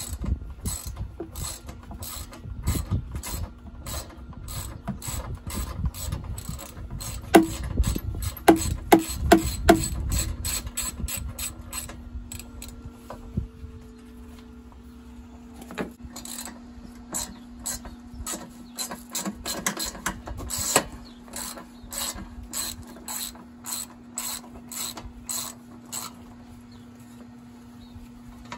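Hand ratchet wrench clicking in runs of rapid strokes as bolts are worked loose on the engine, with a few sharper metal knocks about eight to ten seconds in. A faint steady hum sits underneath throughout.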